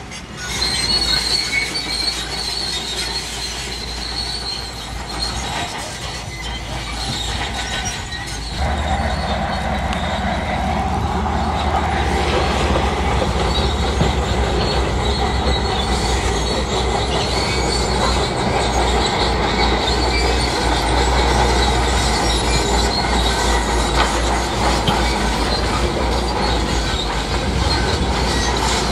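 Shantui crawler bulldozer working, its diesel engine running under a deep rumble while the steel tracks squeal and clank. The rumble grows louder about eight and a half seconds in, as the machine comes under load or moves closer.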